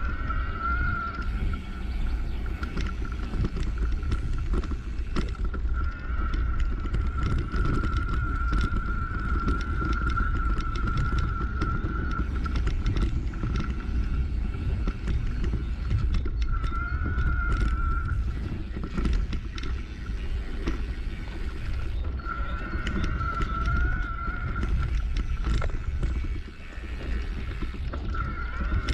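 Mountain bike rolling over a rutted dirt track: a low wind rumble on the handlebar camera's microphone, tyre noise, and frequent rattles and knocks from the bike. A thin, steady whine comes and goes several times.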